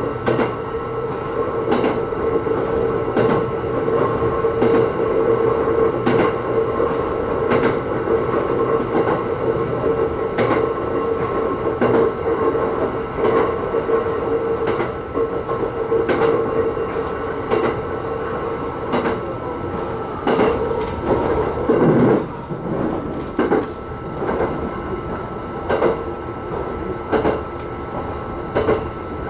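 E129 series electric train running at speed, heard from inside the cab. Its wheels click over rail joints about every second and a half over a steady running hum, and the hum fades out about twenty seconds in.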